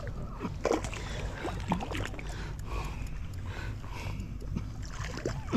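Light splashing of water with scattered knocks and scuffs as a hooked smallmouth bass is reached for and landed by hand at the water's edge.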